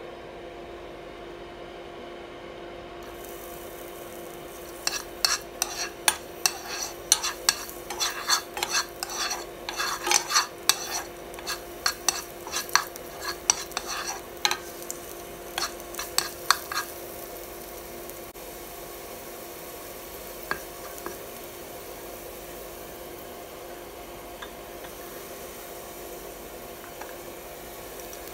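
Chopped garlic sizzling in hot oil in a nonstick frying pan, with the sizzle starting about three seconds in. A plastic spoon scrapes and clacks against the pan in quick strokes for about twelve seconds as the garlic is stirred, then the stirring goes quieter. A steady low hum runs underneath.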